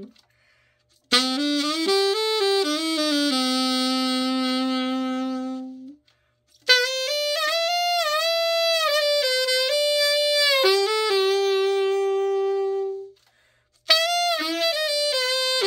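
Yamaha YAS-875EX alto saxophone played in three short melodic phrases, each ending on a held note, with brief pauses for breath between them. This is a play test of the instrument after its overhaul and setup.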